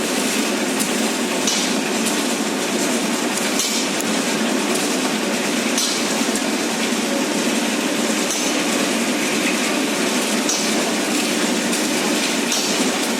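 Steady busy clatter of work at a building site, with metal clinking and sharp clicks scattered through it.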